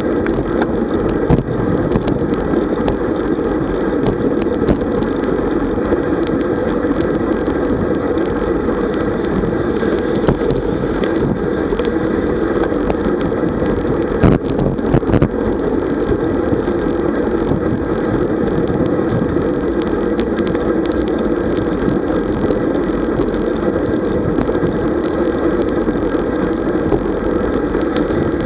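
Steady rush of wind over the microphone of a camera on a road bike moving at about 45 km/h, mixed with tyre noise on asphalt. A few brief knocks come about halfway through.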